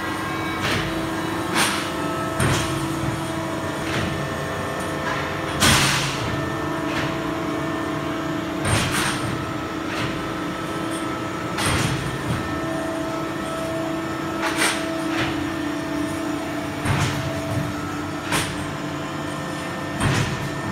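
ELGI E22 rotary screw air compressor running with its refrigerated air dryer: a steady machine hum with a low tone and a higher one above it. About ten short, sharp noises break in at uneven gaps of a second or a few, the longest about six seconds in.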